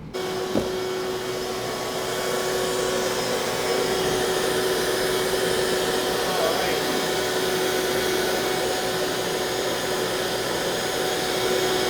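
A motor-driven machine switches on suddenly and runs steadily with a constant whine over a rushing hiss.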